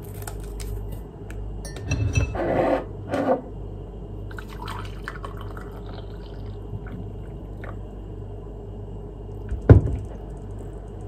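Water poured from an electric kettle into a mug, with light clinks about two seconds in and a sharp knock near the end.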